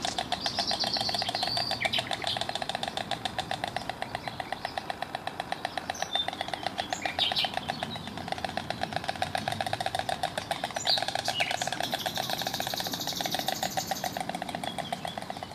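White stork bill clattering: a rapid, steady, machine-like rattle of the mandibles snapping together, with short high chirps of small birds now and then.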